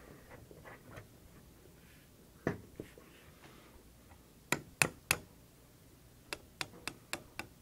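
Hammer tapping a pin punch to drive the firing-pin retaining pin out of a Chiappa 1911-22 pistol's slide. Two light taps come first, then three sharper taps in quick succession midway, then a run of lighter taps near the end.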